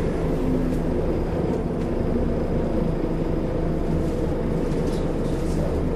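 Diesel engine and road noise of a single-deck bus, heard from inside the passenger saloon: a steady drone while the bus is under way.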